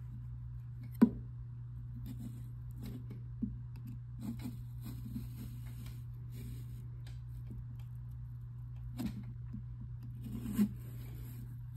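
Small kitchen knife cutting through pumpkin rind, with faint, irregular scraping strokes, a sharp click about a second in and a louder stroke or two near the end, over a steady low hum.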